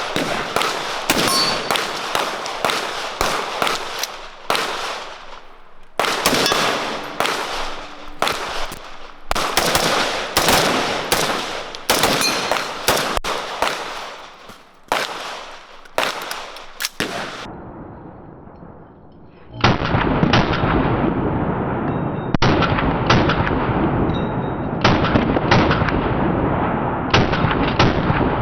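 Gunfire from several firearms: sharp single shots at irregular intervals, some in quick strings. About two-thirds of the way in the shots turn duller, over a steady rumbling noise.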